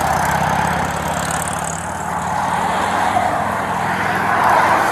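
Traffic passing close by on a busy multi-lane road, with a low engine hum that fades about three seconds in and a passing vehicle rising louder near the end.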